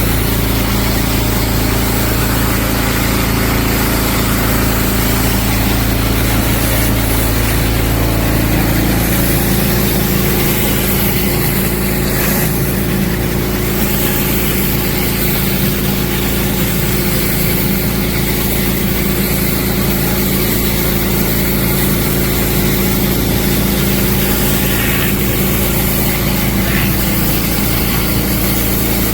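Small gasoline engine of a pull-start pressure washer running steadily, with a dense steady hiss of spray over its hum.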